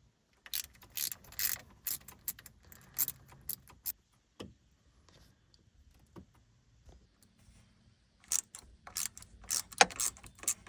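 Ratchet wrench clicking as the 10 mm bolts holding the refrigerant pipe manifold on an AC compressor are undone. There are two runs of quick clicks with a quieter pause between them.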